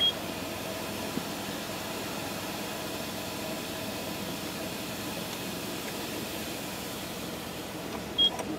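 Steady hiss and hum of a touchless car wash gantry spraying the vehicle ahead in the bay, with two short high beeps from the pay station: one right at the start and one near the end.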